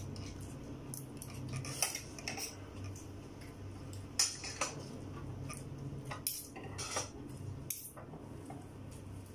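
Metal spoon and fork clinking and scraping against a ceramic plate during a meal, a series of separate short clinks spread through, over a faint low steady hum.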